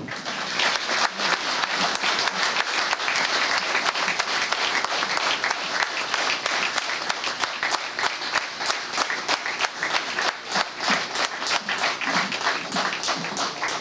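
Audience applauding, many people clapping at once; near the end the applause thins and single claps stand out more.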